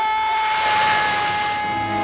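Film soundtrack effect: a loud swelling whoosh over a held chord of high, steady tones that slowly sink in pitch, starting suddenly.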